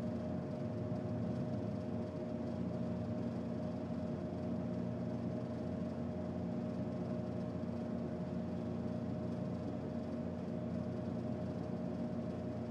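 Electric potter's wheel motor running with a steady hum, several constant tones held throughout.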